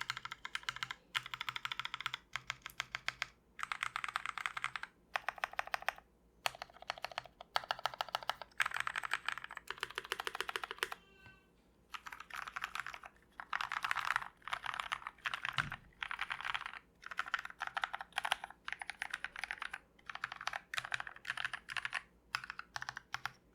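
Fast typing on a GMMK Fullsize mechanical keyboard with lubed Kailh Speed Silver linear switches and PBT keycaps: dense runs of key clacks in bursts, with short breaks between words and one longer pause about halfway through.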